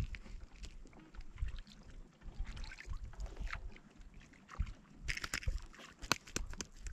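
Wind buffeting the microphone in irregular low rumbles, with a cluster of sharp clicks and rattles about five seconds in.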